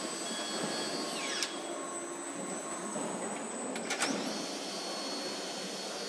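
Car assembly-hall noise: a steady machine hiss with a high whining power tool that winds down about a second and a half in and starts up again with a click about four seconds in.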